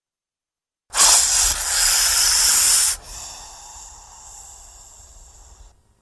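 Snake hissing: a loud hiss starts about a second in and lasts about two seconds, then drops suddenly to a quieter hiss that fades out near the end.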